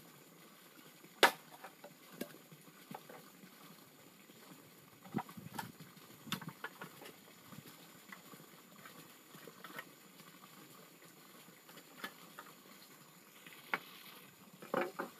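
Bamboo being worked by hand with a knife: scattered knocks and taps of bamboo poles and blade on bamboo, with one sharp knock about a second in and a cluster of knocks near the end.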